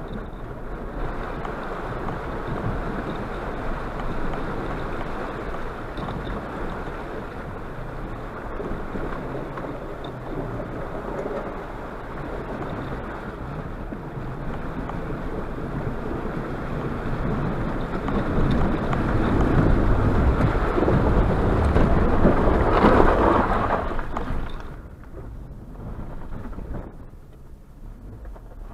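Suzuki Jimny JB74 fording a river: water rushing and splashing against the body and underside as it drives through. The noise grows loudest about two-thirds of the way in, then falls away sharply a few seconds before the end as the vehicle comes out of the water onto grass.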